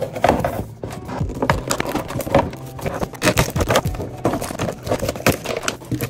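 Cardboard doll box and its clear plastic window being handled and pulled open: a dense, uneven run of crackles, taps and scrapes.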